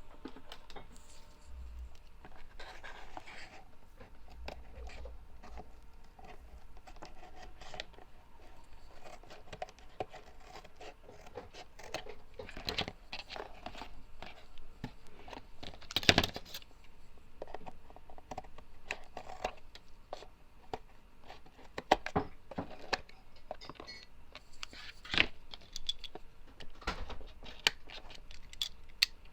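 Cardboard being handled and worked by hand: scattered taps, scrapes and crinkling, with a few sharper knocks, the loudest about sixteen seconds in.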